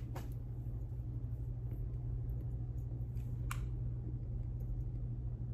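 Quiet indoor room tone: a steady low hum with a few faint clicks, one a little clearer about three and a half seconds in.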